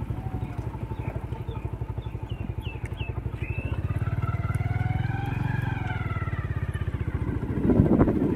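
A small motorcycle engine running close by at low speed, its exhaust pulsing steadily; about four seconds in its pitch rises and falls back over a couple of seconds as it is revved a little.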